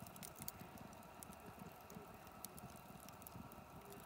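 Wood fire in a metal fire ring crackling faintly, with irregular small pops and ticks from the burning log and coals.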